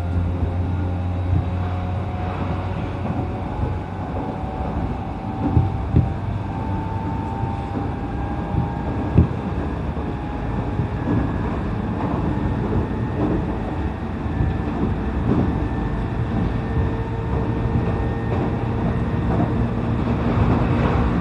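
E531-series electric commuter train running: a steady low rumble with faint motor whine that drifts slowly in pitch, and a few short thumps from the wheels on the track.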